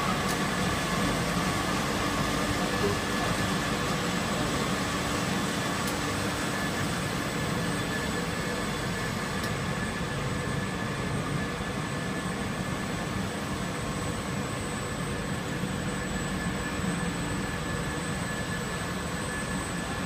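Steady machinery noise of a running rubber extrusion and vulcanization line: an even hiss with a few steady high-pitched whines, unchanging throughout.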